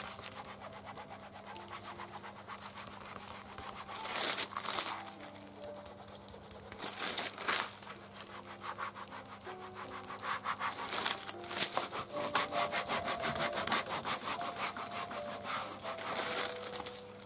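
A baren and the printer's hand rubbing the back of thin paper on an inked end-grain woodblock, pressing the ink into the paper to take a print. Quick scrubbing strokes come in uneven stretches, louder around four seconds in, near seven seconds, and through most of the second half.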